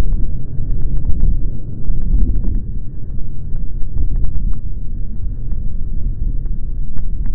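Low, continuous rumble of a Boeing 737-800 landing, heard slowed down with the slow-motion footage, with wind buffeting the microphone and scattered short crackles.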